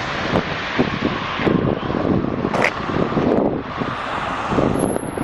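Strong gusting wind buffeting the camera microphone in uneven blasts, over the rush of sea waves on the beach.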